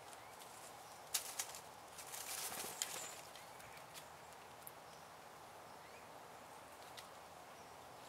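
Blue jay landing and hopping in dry leaf litter: a few sharp taps a little after a second in, then a brief rustle around two seconds in, over faint woodland background hiss.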